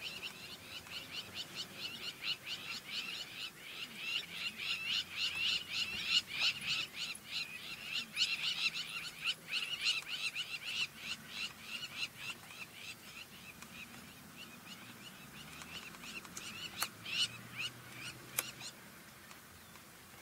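A rapid run of short, high chirping calls from a small wild animal, about four a second, fading out some fourteen seconds in; a few sharp clicks follow near the end.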